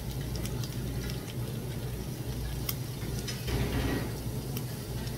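Meat and seafood sizzling on a tabletop barbecue grill plate, with scattered sharp pops and clicks over a steady low hum. A short, louder rustling noise comes about three and a half seconds in.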